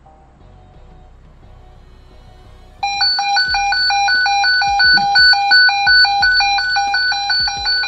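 Cobra PX655 walkie-talkie's emergency alert, set off by holding the emergency call button: after a faint start, a very loud, rapidly pulsing electronic beeping alarm cuts in about three seconds in and keeps going.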